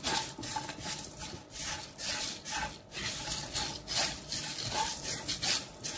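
A silicone spatula stirring and scraping whole spices around a dry non-stick pan while they dry-roast: coriander seeds, cumin, peppercorns and dried red chillies. The seeds make a rasping rustle on the pan's surface, with about two strokes a second.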